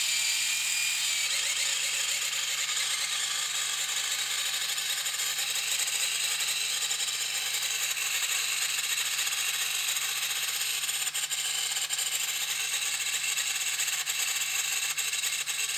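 A small electric servo raising the 3D-printed landing gear of a quadcopter, running slowly and steadily with a whine and light ticks over the last few seconds. It sounds like it is rubbing inside; the builder traces the trouble to the servo being fed 6 volts, which it doesn't like.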